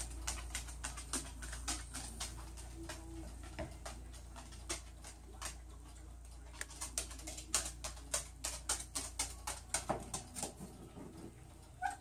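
Cockatoo moving about on a hard tiled floor: light, irregular clicking and tapping, growing busier past the middle.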